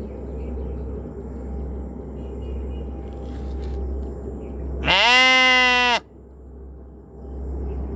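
A sheep bleats once, about five seconds in, a loud call of about a second that rises at the start and then holds its pitch. A steady low rumble runs underneath.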